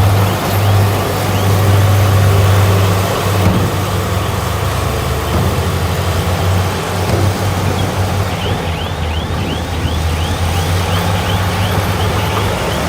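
Heavy earthmoving machine's diesel engine running steadily with a deep hum. From about eight seconds in, a quick, regular run of short high squeaks sounds over it.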